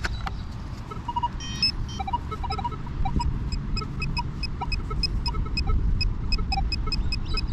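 Metal detector beeping in short, evenly spaced high tones, about two or three a second from a few seconds in, while it homes in on a buried coin, under a steady low rumble.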